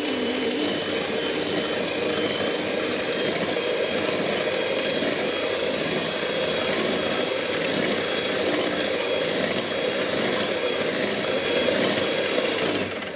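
Electric hand mixer running steadily at low speed, its beaters whipping liquid cream in a bowl. It stops near the end.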